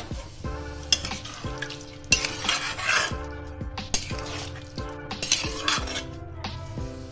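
A spatula stirring a thin, watery vegetable curry in a metal kadai: scraping against the pan and sloshing through the gravy in three spells, about one, two and five seconds in. Background music with a steady beat plays underneath.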